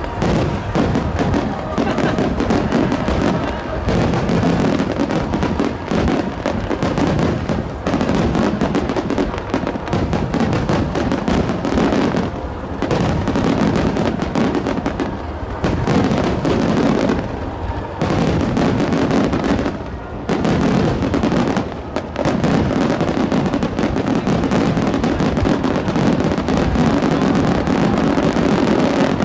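Grand-finale fireworks barrage: aerial shells and starmines bursting in rapid, almost unbroken succession, crackling and booming, with a few brief lulls.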